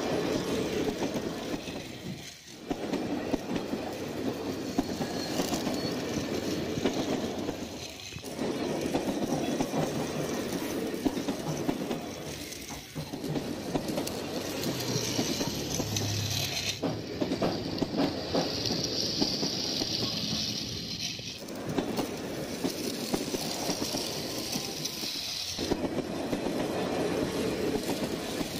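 Rail King toy train set running along its track, giving a steady mechanical running noise from the small locomotive and its wagons. The sound drops out briefly every four to five seconds.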